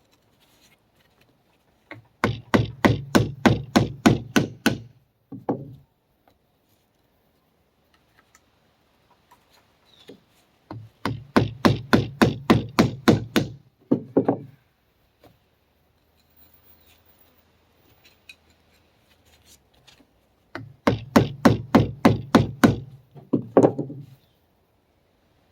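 Hammer blows on the old front axle oil seal of a Ford 1910 tractor, bending it to work it out of its bore. Three runs of quick strikes, about five a second, each lasting a few seconds with pauses between.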